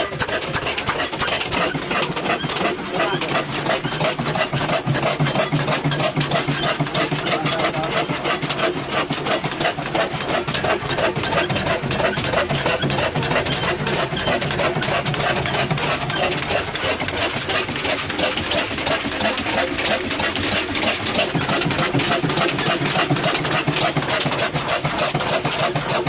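Old stationary diesel engine running steadily with an even, rapid knock, driving a flat belt to a pulley.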